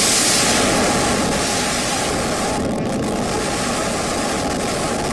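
Loud, steady roar of the Supertech twin towers' explosive demolition: the rushing rumble of the towers collapsing and the dust cloud rolling out, easing off slightly over the first couple of seconds.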